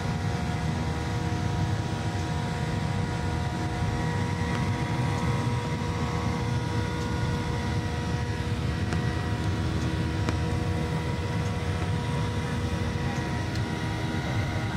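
Jet airliner cabin noise heard from a window seat beside the engine: a steady deep rumble of engine and airflow with a constant whine of several steady tones over it.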